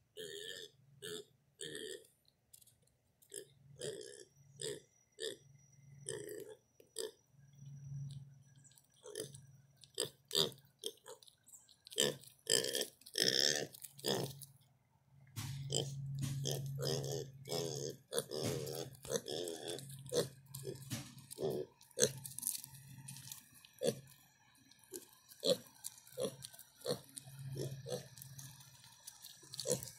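Kunekune piglets grunting, short low grunts over and over, mixed with crunching and clicking of gravel as they walk and root.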